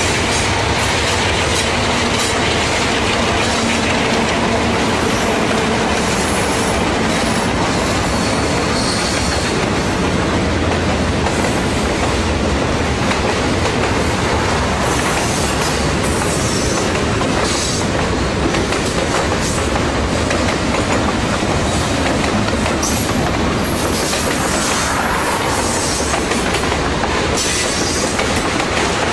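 Diesel-hauled freight train passing close by. The locomotives' engine hum is heard for the first several seconds, then fades as the freight cars roll past with a steady rumble and wheels squealing now and then.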